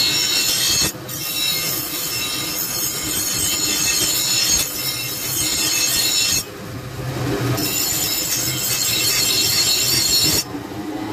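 A steel meat-cleaver blank, made from an old iron leaf spring, ground on a bench grinder wheel to shape its outline: a loud, high grinding screech. It breaks off briefly about a second in, again around six and a half seconds in, and near the end, as the blade comes off the wheel.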